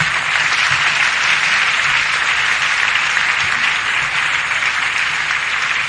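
A large congregation applauding steadily, greeting a healing just proclaimed from the altar.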